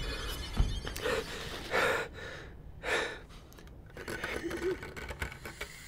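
A person breathing hard in gasps: about three loud breaths roughly a second apart, with a low thump under a second in.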